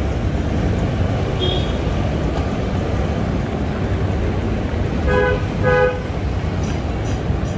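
Busy street traffic with a steady engine and road rumble, cut by two short toots of a vehicle horn about five seconds in.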